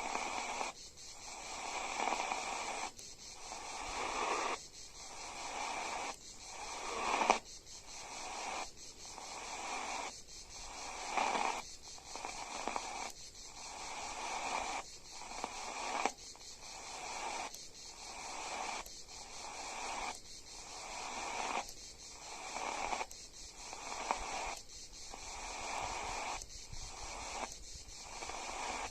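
Radio receiver tuned between stations, giving static hiss with a regular pulsing swell of noise a little slower than once a second, the kind of periodic interference heard while stations only faintly break through.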